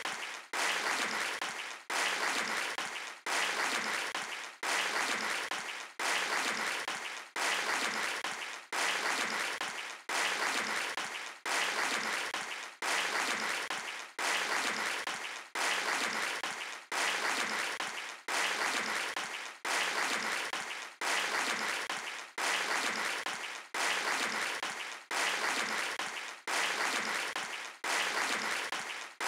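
Audience applause heard as one short stretch of clapping repeated over and over, about every second and a half, each repeat fading slightly and breaking off with a brief gap before the next.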